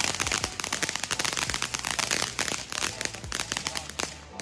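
Spirit of Freedom fountain firework crackling: a dense, fast stream of small pops and crackles that thins out and quietens near the end as the fountain burns down.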